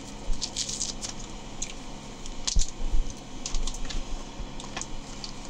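Light, irregular clicks and taps from a Posca paint marker being handled and shaken to prime it.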